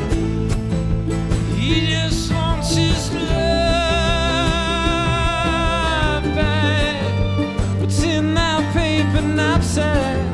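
Live band music in an instrumental passage: a high melody line with vibrato rides over plucked strings and a steady bass.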